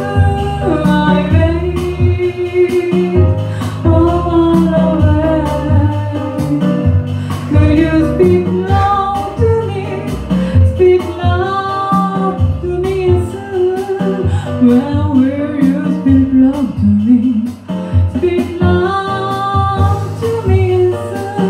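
A woman singing a melody live into a microphone over a band accompaniment, with a bass line moving underneath and regular cymbal strokes.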